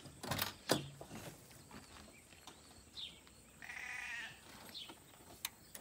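The pickup's door latch clicks and the door opens, with a couple of sharp knocks in the first second. About three and a half seconds in, a sheep gives one wavering bleat.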